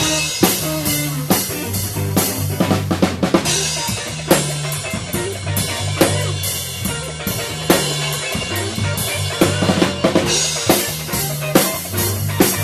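Band playing live, the drum kit loudest with repeated snare and kick strokes over sustained low bass notes that change pitch.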